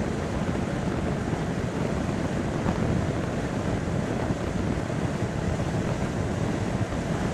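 Steady rumble of tyres and wind heard from inside a car driving at highway speed.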